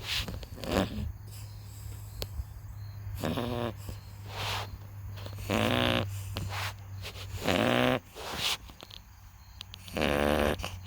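A sleeping puppy snoring loudly, a rattling snore every two seconds or so.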